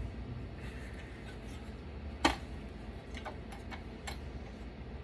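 Hard parts clicking and knocking as a desktop computer is taken apart: one sharp knock a little over two seconds in, then a few lighter clicks, over a low steady hum.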